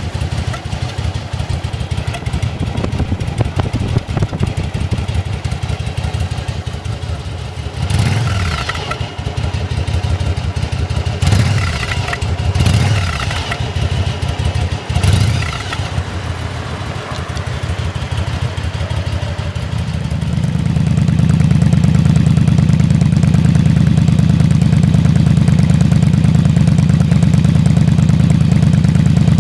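Yamaha Drag Star 1100's air-cooled V-twin idling, blipped four times in short rises and falls of revs, then running louder and steadier from about twenty seconds in.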